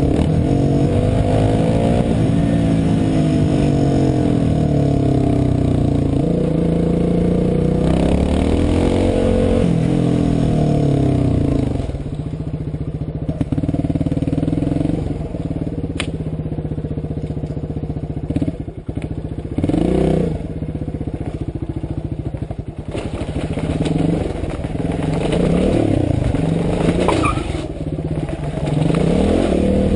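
Motorcycle engine running as the bike is ridden, its pitch rising and falling with the throttle. From about halfway through it drops to a quieter, steadier run with some clatter, then picks up and rises and falls again near the end.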